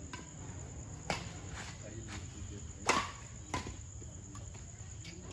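Badminton rackets striking a shuttlecock in a doubles rally: a few sharp smacks, the loudest about three seconds in. Under them runs a steady high chirring of insects.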